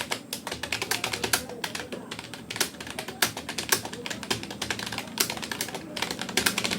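Rapoo computer keyboard being typed on fast, a quick, irregular run of key clicks during touch typing.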